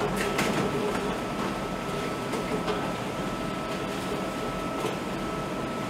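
Steady machinery hum with a thin high whine, overlaid by the crinkle of heavy paper bags and the clatter of plastic bottles being tipped into a plastic waste processor.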